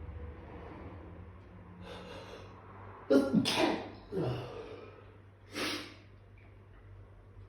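A person sneezing: a breathy in-breath about two seconds in, then a loud sneeze with a second burst right after it, and a shorter, quieter sneeze-like burst near six seconds, part of a sneezing fit.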